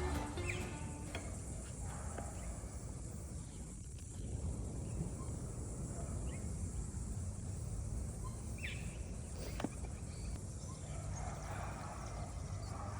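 Outdoor ambience: a steady low rumble of wind on the microphone, with a few faint short bird chirps and an odd small click.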